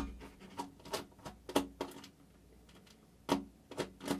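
Small sharp clicks and taps of a handheld screwdriver and screws being worked out of a router's circuit board, irregular, a run of them over the first two seconds, a pause, then three more near the end.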